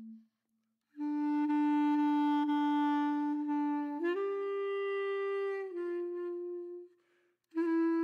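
Background music: a slow melody of long held notes on a woodwind instrument, broken by short pauses between phrases.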